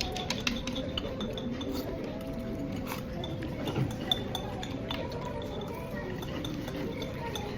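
Eating utensils clinking and scraping against a dish in small, irregular ticks while someone eats.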